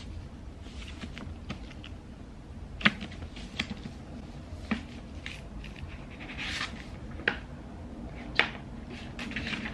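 Hardcover book being handled: irregular sharp taps and clicks of fingers and nails on the cover and boards, with a soft rustle of pages about six and a half seconds in.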